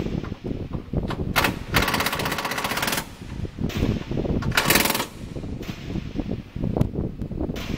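Pneumatic impact wrench hammering in two bursts, a longer one about two seconds in and a short one about five seconds in, over a busy low rumble.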